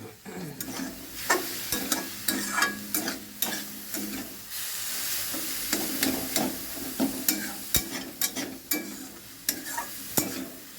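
A spatula stirring spiced chicken frying in a pan, sizzling in oil, with frequent irregular clicks and scrapes of the spatula against the pan. The sizzle runs steadier for a stretch near the middle.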